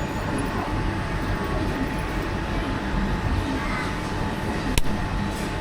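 Steady rumbling background din of a busy street, with a single sharp click near the end.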